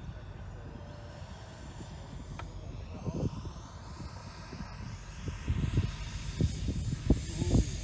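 Turbine of a radio-controlled model jet whining in flight, its pitch sliding up and down as the jet moves through the sky. Low buffeting on the microphone grows stronger near the end.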